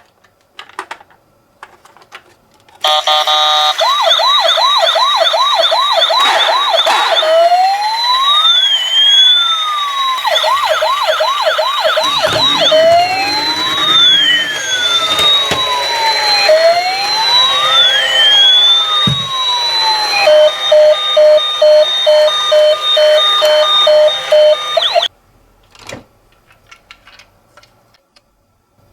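Toy ambulance minicar's electronic siren sound chip playing. It cycles through a fast warbling yelp, a slow rising-and-falling wail, and a stepped two-tone hi-lo pattern. It starts about three seconds in and cuts off suddenly a few seconds before the end, with only faint clicks either side.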